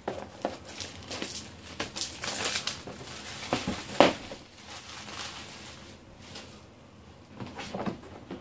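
Plastic shrink wrap crinkling and rustling as it is pulled off a cardboard retail box, with one sharp knock about four seconds in. The crinkling dies down for a couple of seconds near the end, then picks up again.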